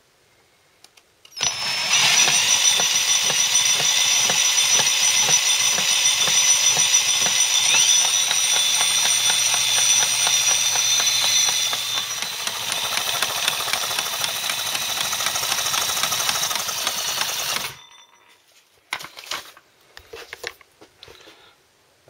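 Electric drill spinning a stripped-down Honda CBF125 engine over by its crankshaft with the gearbox connected: the drill's motor whine with a fast, steady knocking from inside the engine. It starts about a second and a half in and stops suddenly near the end. The knock is clearly there, and the owner puts it down to the gearbox, typical of a missing gear tooth or a collapsed bearing.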